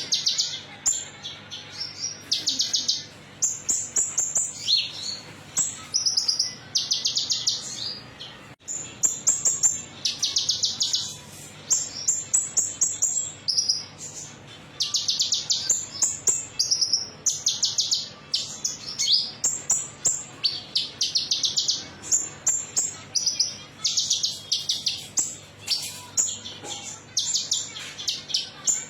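Konin metalik songbird singing: high, rapid chirping trills in short phrases, one after another about every second, over a faint steady low hum.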